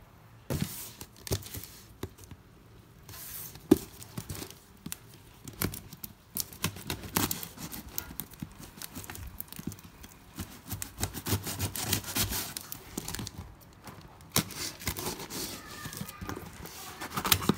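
Plastic wrapping and packing tape on a cardboard shipping box crinkling and tearing as they are pulled off by hand: an irregular run of sharp crackles and rustles, with one sharper click about four seconds in.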